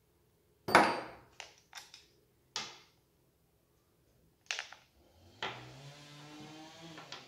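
A metal combination wrench is set down on a wooden workbench with a sharp knock, followed by a few lighter knocks of small metal parts. Then comes a drawn-out squeaky scrape that rises slowly in pitch as the chainsaw's clutch cover is worked off its bar studs.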